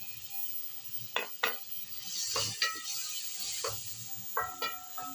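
A wooden spoon knocking and scraping against an aluminium pot as chopped tomatoes are stirred into frying onions, with a hiss of sizzling oil under it. The knocks come irregularly, several of them.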